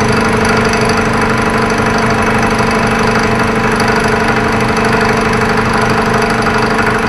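Vertical milling machine running steadily, a 3/4-inch two-flute end mill side-cutting an aluminum block to true up its edges.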